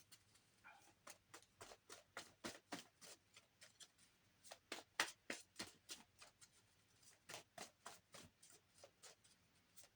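Soft, uneven clicks and snaps of a deck of cards being shuffled and handled, a few per second.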